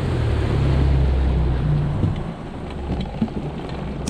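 Boat motor running under way with wind and water rushing, a steady low engine note that eases back about halfway through.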